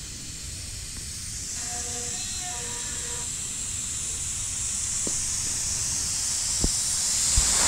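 Compressed air from a Husky 8-gallon air compressor hissing steadily at the tire inflator chuck on a bicycle tire valve, growing slowly louder, with a few faint clicks near the end.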